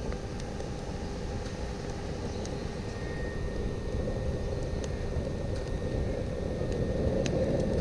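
Wood fire in a steel rocket stove roaring under forced draft from a small 12-volt fan tilted down into the feed opening, so that it burns hotter, with occasional crackles. The roar builds slowly, and a faint steady whine comes in about three seconds in.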